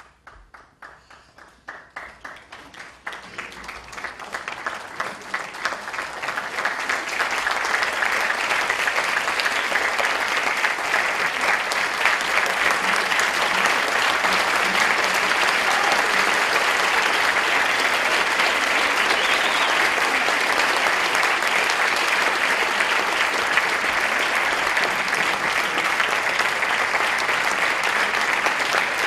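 Audience applause: a few scattered claps that swell over about seven seconds into steady, full applause.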